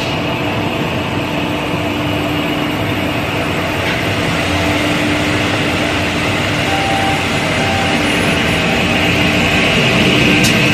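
KDT automatic edge banding machine running: a loud, steady machine noise with a constant low tone and a high whine, getting slightly louder near the end.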